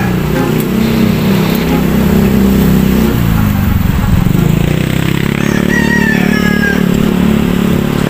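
Motor vehicle engine running close by, its pitch dipping and then climbing back about halfway through.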